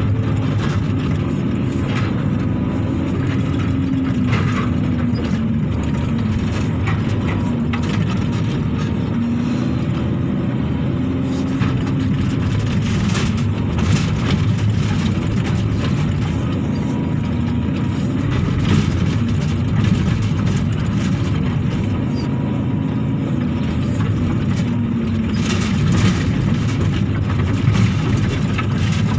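Hydraulic excavator's diesel engine running under digging load, heard from inside the operator's cab, its pitch dipping and rising as the hydraulics work the boom and bucket. A few brief knocks and rattles come through, about halfway and near the end.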